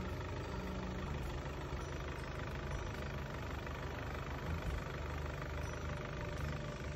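Volkswagen Passat B8 2.0 TDI four-cylinder diesel engine idling steadily, with its new glow plugs fitted.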